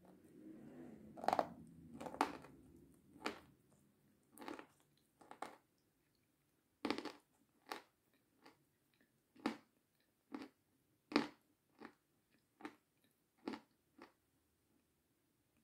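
Close-miked chewing of meringue with sour cream: sharp, irregular crunches and wet mouth clicks about a second apart, with a soft low rumble in the first few seconds.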